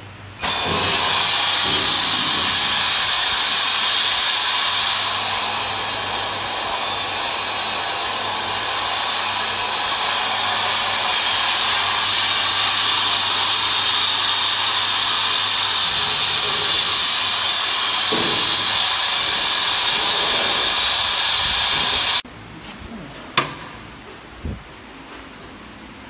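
Electric pressure fryer releasing its steam pressure at the end of the cook cycle: a loud, steady hiss that starts suddenly, runs about twenty-two seconds and cuts off abruptly. Two sharp knocks follow near the end.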